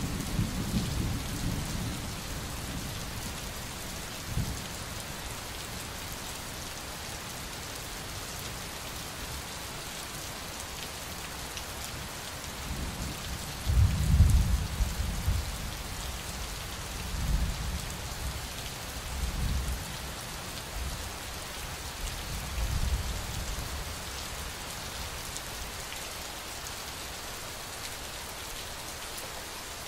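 Steady rain with thunder rumbling several times: once at the start, loudest about fourteen seconds in, then a few weaker rolls.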